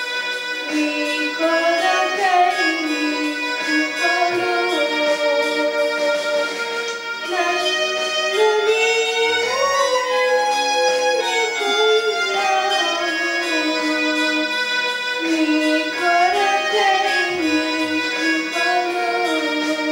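Slow instrumental music led by a violin melody of held, gliding notes over sustained accompaniment.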